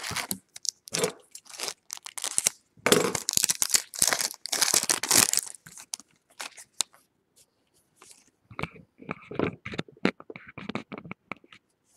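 Baseball card pack wrapper being crinkled and torn open in several noisy rustling bursts, heaviest a few seconds in, followed by lighter scattered rustles and clicks as the cards are handled.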